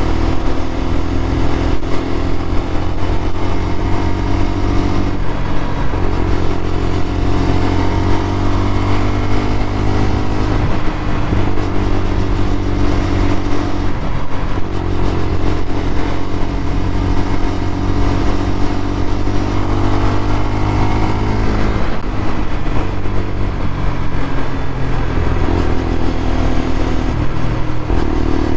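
A 125 cc motorcycle engine running under way, its pitch climbing and dropping back several times as the rider accelerates and eases off, over steady wind noise on the microphone.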